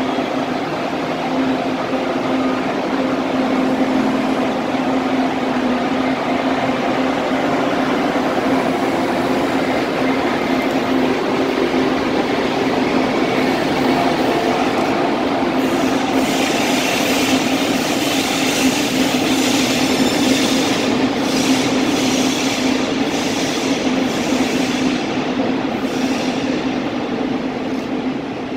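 ICE 2 high-speed electric train, Class 402 power car leading, pulling out of a platform: a steady hum with a constant low tone throughout. About halfway through, louder rolling noise with sharp clicks joins it as the coaches pass.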